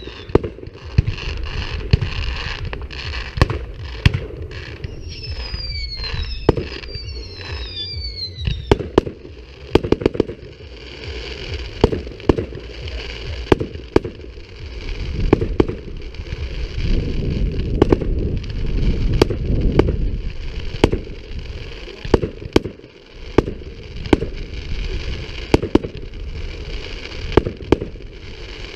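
Fireworks display: a string of sharp bangs from bursting aerial shells, with several whistles falling in pitch during the first eight seconds or so, over a steady low rumble.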